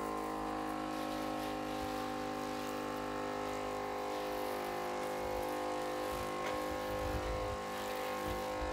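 A machine running steadily, an even hum of several held tones.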